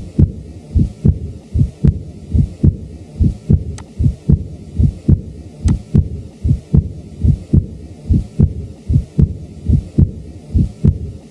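Recorded heart sounds from cardiac auscultation: a regular, fast lub-dub beat, with low thumps repeating evenly throughout.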